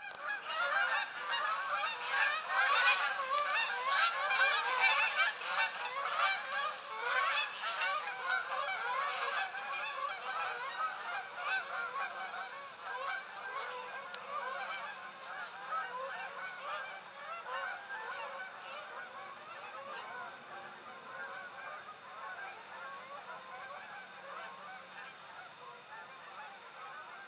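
A large flock of geese flying overhead, many birds honking at once in a dense, overlapping chorus. The honking is loudest in the first several seconds, then fades steadily as the flock moves away.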